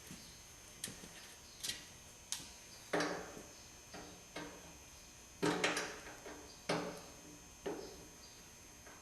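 Irregular sharp clicks and knocks of hand tools working the screws on a tractor's fuel-sender plate, about a dozen in all, with a quick cluster about five and a half seconds in.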